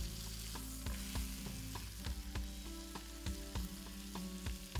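Bacon-wrapped chicken breasts frying in hot oil and butter in a nonstick pan: a steady sizzle with frequent sharp pops and crackles of spattering fat.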